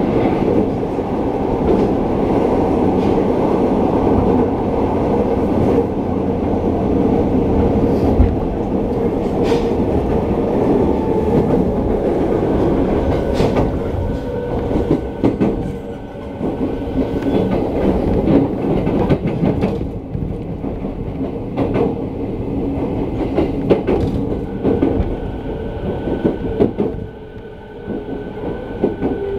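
Running noise inside an E217 series electric train: a steady rumble of wheels on rail with scattered rail-joint clicks. A faint steady whine comes and goes in the second half, and the noise eases near the end as the train runs into a station.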